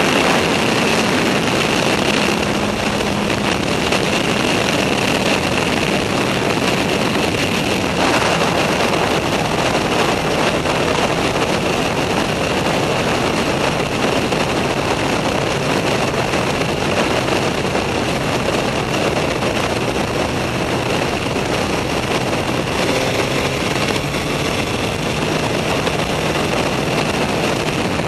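Suzuki GSX-R 1000 K4's inline-four engine running at road speed under a dense, steady rush of wind noise.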